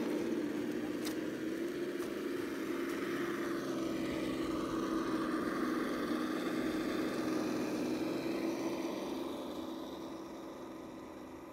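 Axial SCX10 RC rock crawler's electric motor and gearbox whining steadily as it drives along a dirt track, fading over the last couple of seconds as it moves away.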